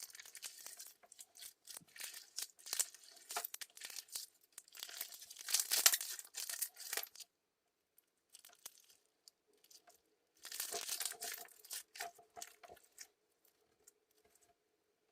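Clear crystal slime being squeezed and pressed by hand, giving off quick crackling and popping clicks. The crackling comes in runs, loudest about six seconds in, stops briefly around eight seconds, picks up again, and fades out after about thirteen seconds.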